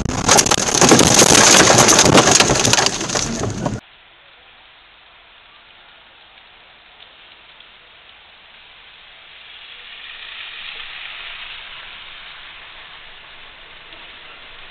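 Loud, dense crackling and pattering noise with many sharp clicks. After about four seconds it cuts off abruptly to a faint steady hiss, which swells slightly and then eases.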